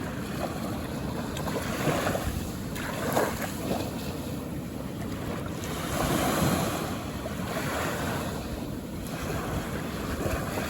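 Calm ocean waves washing onto a beach, a steady surf hiss that swells gently about two, three and six seconds in.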